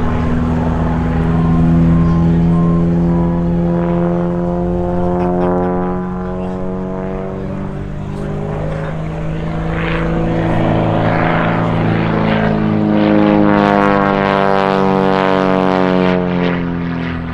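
Aviat Pitts Special S-2B aerobatic biplane, its six-cylinder Lycoming engine and propeller running hard through a display. The note slides down in pitch twice, swelling louder with each pass.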